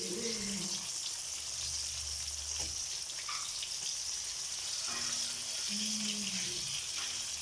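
Coated chicken pieces deep-frying in hot oil in a wok: a steady sizzle, with a couple of faint clicks along the way.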